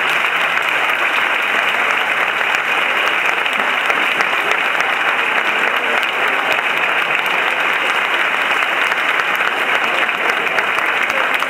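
Audience applauding steadily, a long unbroken round of clapping.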